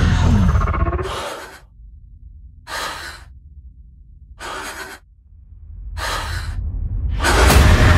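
Trailer sound design: a loud hit that fades over about a second, then a low rumbling drone with two short, sharp gasps about a second and a half apart, before a loud rumble swells up near the end.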